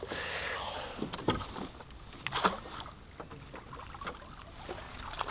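Water splashing and sloshing against a canoe as a hooked smallmouth bass thrashes at the surface and is netted, with a few sharp knocks along the way.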